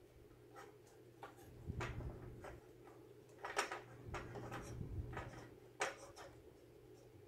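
Handling noise from work on graphics-card fan wiring: a scatter of small clicks, taps and light knocks, a few louder ones about two, three and a half and six seconds in, over a steady low hum.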